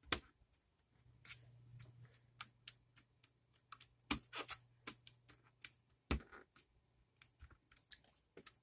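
Irregular plastic clicks and taps as a membrane keyboard's parts are pressed down onto their locating pegs, with two louder knocks about four and six seconds in, over a faint low hum.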